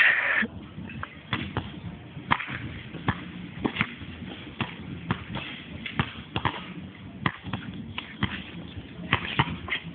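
A basketball bouncing on an outdoor hard court, giving irregular sharp thuds about once a second. There is a short loud burst of noise right at the start.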